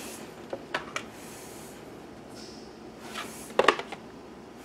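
Board-game components being handled and set down: a few light clicks and rustles, then a louder run of quick knocks about three and a half seconds in.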